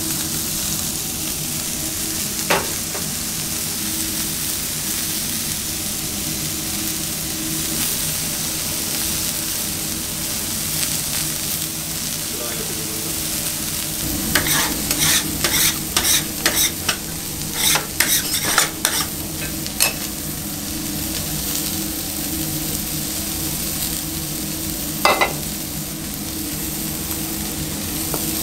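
Raw beef burger patties sizzling on a hot ribbed grill plate: a steady frying hiss, with a run of crackling pops about halfway through. Two single sharp clicks, one early and one near the end.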